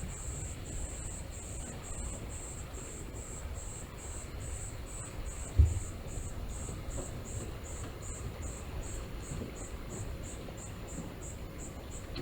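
Insect song: a high chirp repeated about three times a second, the chirps growing shorter and quicker. A low rumble runs underneath, and a single dull thump about halfway through is the loudest sound.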